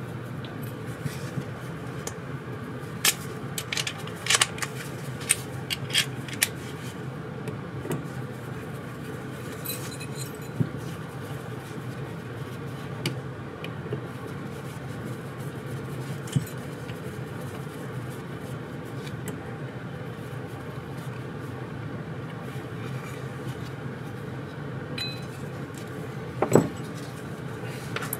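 Small metal carburetor parts and the aluminium carburetor body clinking and tapping as they are handled and set down on the bench. There is a quick run of clicks in the first several seconds, scattered ones after, and the loudest knock near the end. A steady low hum runs underneath.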